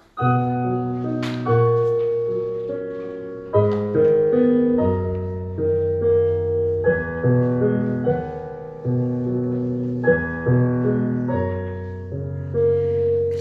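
A keyboard instrument with a piano sound playing a slow chordal introduction to a song: chords struck every second or two and left to ring and fade.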